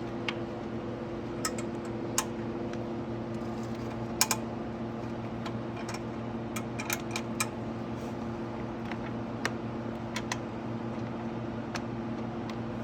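Irregular sharp clicks and taps of bolts, a wrench and the plastic side fairing being handled as the fairing bolts are put back in, over a steady low hum.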